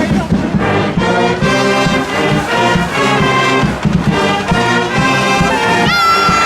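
A marching band's brass section playing a tune over a steady drum beat.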